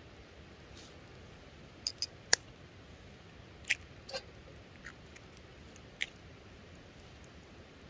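Campfire coals crackling: scattered sharp pops, about seven, the loudest a little over two seconds in, over a steady low hiss.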